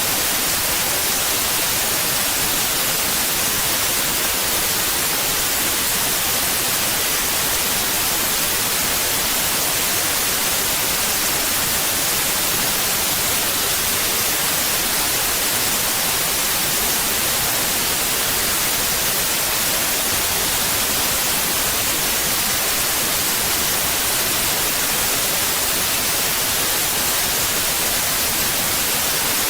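Steady, unchanging white noise: an even static hiss, strongest in the high frequencies, with no tones or events.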